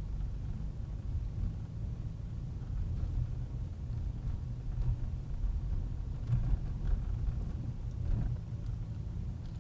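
Car engine and tyre noise while driving: a steady low drone.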